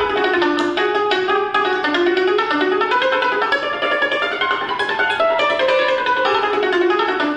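Concert cimbalom played solo with hammers: quick runs of struck, ringing notes that rise and fall in pitch.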